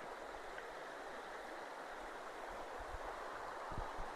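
Faint, steady rush of a river flowing, with a few soft low thumps late on.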